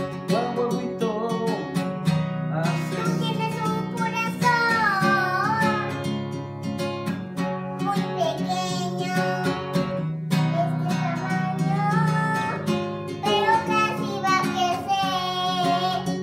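A young girl singing with long, gliding notes over a strummed acoustic guitar.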